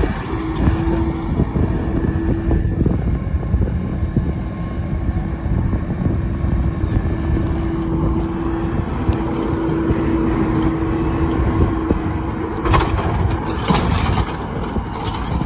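Tractor running steadily under load, driving a power harrow and seed drill while sowing, with a steady whine from the drive line.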